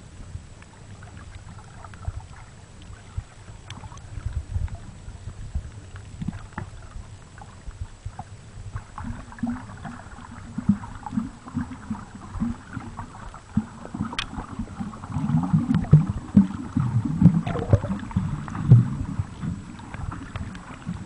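Muffled water sounds picked up by a camera held underwater: irregular sloshing and gurgling with a few sharp clicks, getting busier and louder from about halfway through.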